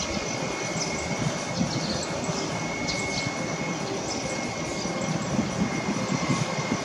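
Airbus A321-200 jet engines at takeoff power as the airliner climbs away, a steady rumbling jet noise with a thin steady whine over it.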